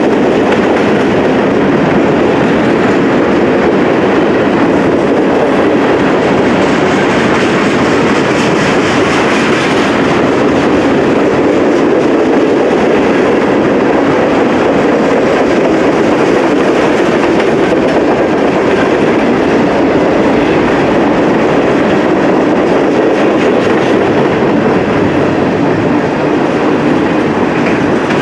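Norfolk Southern freight train rolling steadily past: a loud, continuous rumble of steel wheels on rail with clickety-clack over the joints.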